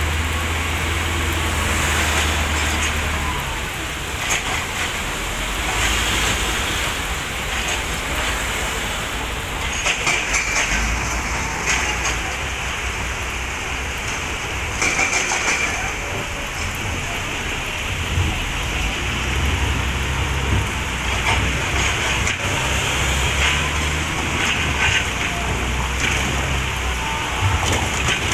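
Excavator diesel engine running under a steady rushing hiss, with scattered knocks of rock on rock. The engine's low hum fades after a few seconds and comes back past the middle.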